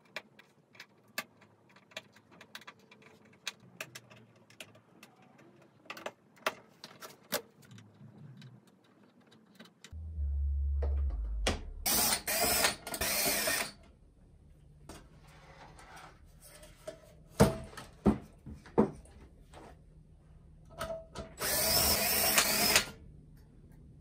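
Light scattered clicks and scrapes of a small hand tool working the tube socket contacts to tighten them. Then a cordless drill/driver whirs in short bursts on the amplifier's sheet-metal chassis: a broken run of three spins about halfway through and one longer spin near the end.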